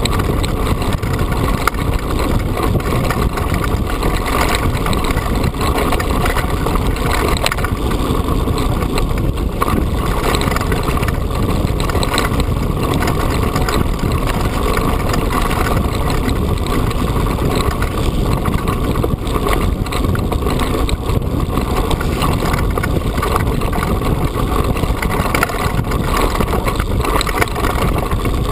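Mountain bike riding fast over a loose, stony track: a steady loud rumble of the tyres on gravel, with constant rattling and knocking as the bike and the camera on it are shaken.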